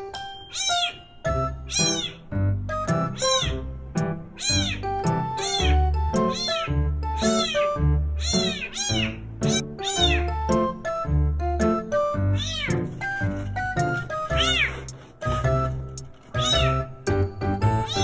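A young kitten meowing over and over, high cries that rise and fall in pitch, one or two a second, typical of a kitten unsettled in a new home. Background music plays under the meows.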